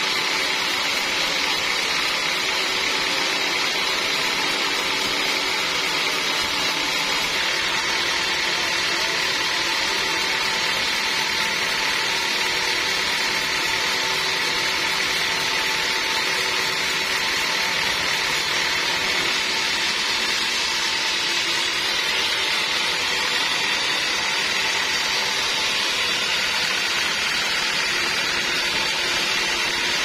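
Band sawmill blade cutting lengthwise through a large, very hard log. It makes a steady, even sawing noise with a high ringing whine that holds throughout.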